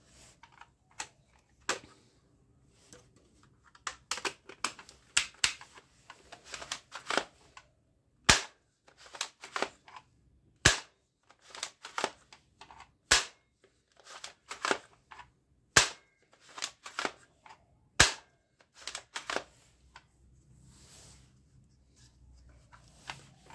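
Sharp plastic clicks and clacks from a Nerf-style foam-dart toy blaster's mechanism being worked by hand, coming in irregular clusters. A single louder snap stands out every two to three seconds through the middle, and the clicks thin out and soften near the end.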